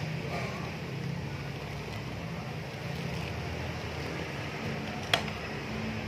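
Chicken boiling in coconut-milk broth in an aluminium pot while a ladle stirs it: a steady low rumble, with one sharp clink of the ladle against the pot about five seconds in.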